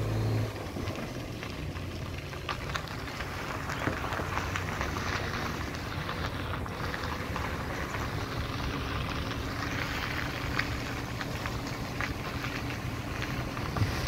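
Wind buffeting and crackling on the microphone, with a steady low hum underneath.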